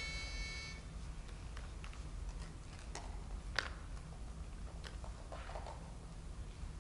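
A pitch pipe sounds one steady note that stops under a second in, giving the starting pitch. It is followed by scattered sharp clicks over a low room hum, the loudest about three and a half seconds in.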